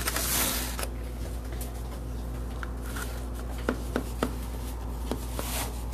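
Knife working through a pan of buttermilk cornbread in a foil pan: a brief rustle at the start, then a few soft clicks and taps from the blade against the foil, over a steady low hum.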